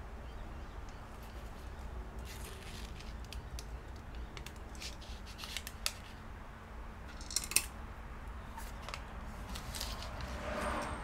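Hand work at a repair bench: a scattering of short, crisp clicking and scraping sounds, with the sharpest near the middle, over a low steady hum.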